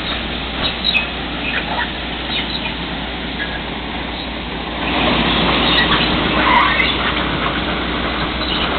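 LORAM ballast cleaner work train rolling slowly past: a steady rumble and clatter of its machinery and wheels on the rails, with scattered short high chirps. It grows louder about five seconds in.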